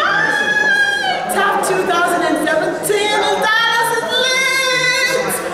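A woman singing unaccompanied, in long held notes.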